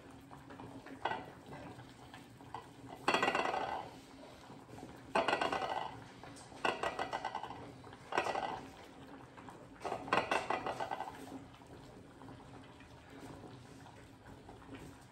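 Dishware and utensils handled on a kitchen counter: about half a dozen short rattling scrapes, each under a second.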